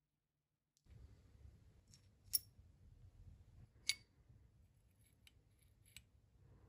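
Steel jaw of a restored antique nail puller being worked on its pivot by hand, with a low handling rumble. There are two sharp metallic clicks about a second and a half apart, then a few lighter ticks.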